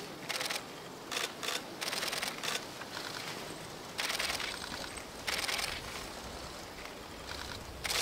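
Camera shutter firing in short bursts of rapid continuous shooting, several brief bursts with longer ones about four and five seconds in.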